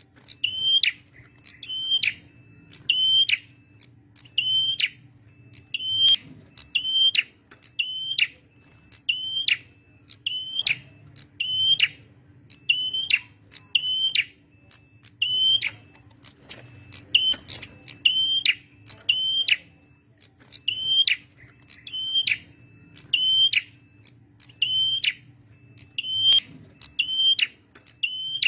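Male prenjak merah songbird calling vigorously: one short, sharp, high note repeated at an even pace, roughly four calls every three seconds, on and on.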